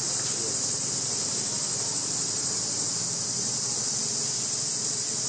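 Insect chorus: an unbroken, steady high-pitched drone.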